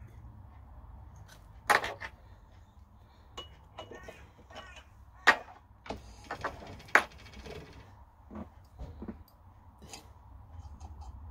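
Metal-on-metal clinks and taps as tools and a copper boiler tube are handled on a mini mill's table: three sharp, loud clinks among lighter taps and rattles, over a low steady hum.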